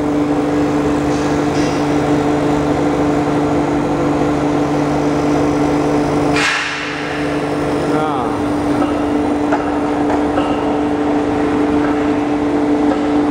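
Foam-cutting machine running as it slices memory foam into thin sheets: a steady electric-motor hum with a strong even tone and a rattling clatter from the machine. About six and a half seconds in the sound dips briefly and a lower part of the hum drops away, while the main hum runs on.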